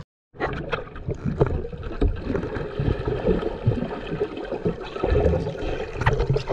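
Muffled underwater water noise with irregular bubbling and small knocks, heard through a submerged camera's housing.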